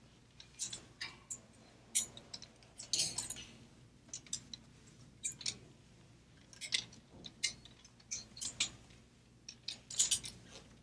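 Clear plastic clothes hangers clicking and clattering against a wire gridwall and against each other as garments are lifted off the display, with some fabric rustling. The clicks are irregular and scattered throughout.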